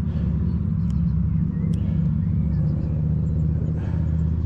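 Steady low rumble of wind buffeting the microphone during a mountain bike ride, with two faint clicks about one and one-and-three-quarter seconds in.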